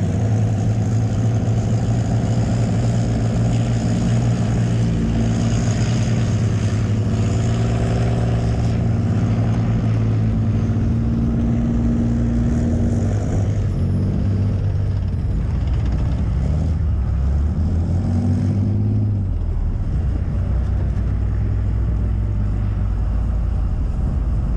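Leopard 2 main battle tank's V12 diesel engine running, loud and steady. Its pitch shifts about halfway through and again later, then settles into a lower drone as the tank drives on.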